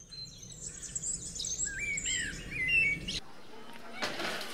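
Birdsong: a run of short, high chirps and whistles that rise and fall in pitch, cutting off abruptly about three seconds in.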